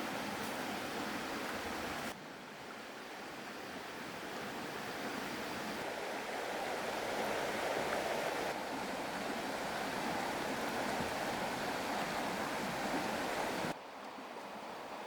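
Rushing river water: a steady wash of noise that changes abruptly in level about two seconds in and again near the end.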